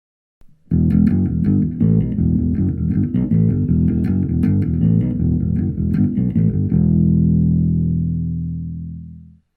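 Intro music with a busy, rhythmic run of notes that ends on a held chord, fading out just before the end.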